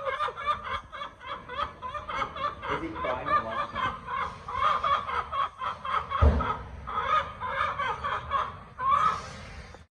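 A brown hen clucking in a quick, steady run of short repeated notes, with a low thump about six seconds in.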